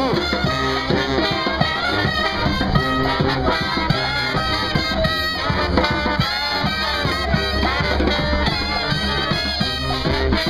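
Brass band playing jazz, with trumpet and trombone to the fore.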